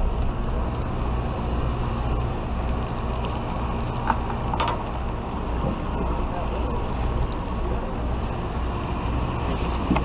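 Steady low drone of the party boat's engine, with wind on the microphone; two short clicks about four seconds in.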